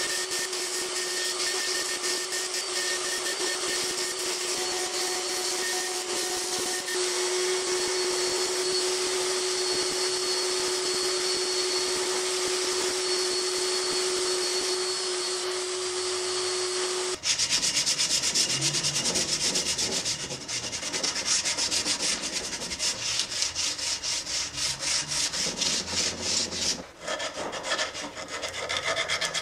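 Angle grinder with a sanding disc running steadily while an elm hammer handle is pressed against it and shaped, a steady motor tone under the hiss of abrasive on wood. About 17 seconds in the grinder sound cuts off abruptly, and rapid hand-rubbing strokes along the wooden handle follow.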